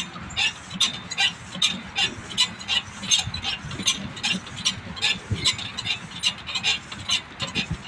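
Rhythmic light ticking or tapping, about two and a half strokes a second, kept up at an even pace over a low background rumble.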